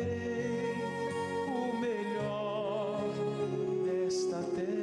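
A Portuguese-language gospel song: a voice holds long sung notes with a slight waver over a steady instrumental accompaniment.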